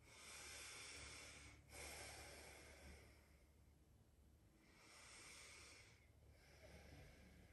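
Faint, slow breathing in and out through the nose: two deep breaths, each a soft hiss in and a soft hiss out, with a quiet pause between them.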